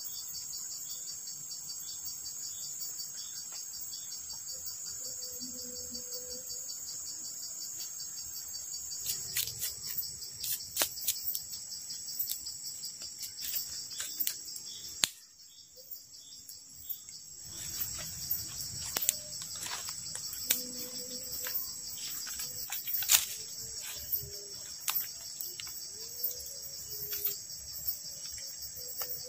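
Steady high-pitched insect chorus of the forest at dusk. From about nine seconds in, irregular sharp crackles and snaps are heard, from a small campfire of twigs and dry palm fronds burning. The chorus dips out briefly around the middle.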